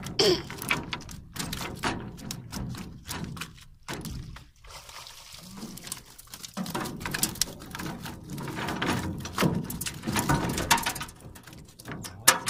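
A wire-mesh fish trap hauled out of the water into a steel boat: water splashing and pouring off it, with irregular knocks and thunks of the trap against the metal hull.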